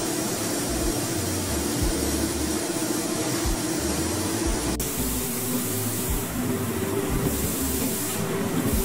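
Factory ambience: a steady hiss like spraying water and running machinery over a low, irregular thumping. The sound changes abruptly about five seconds in.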